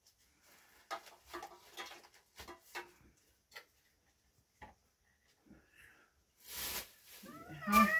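Scattered light knocks and clinks of plastic cups and dishes being handled on a floor spread, a short rustle about six and a half seconds in, then a high wavering cry near the end.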